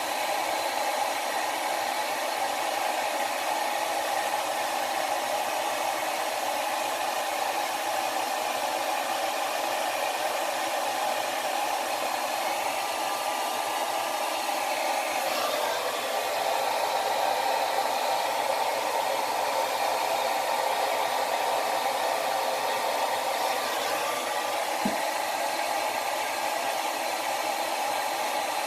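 Small handheld beard blow dryer (the Blown dryer) running steadily on its first, lower setting, a continuous blowing noise. Its tone shifts slightly about halfway through.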